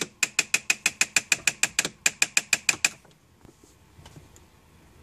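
Rapid, regular clicking from a 2002 Mitsubishi Galant, about six sharp clicks a second. It stops abruptly about three seconds in.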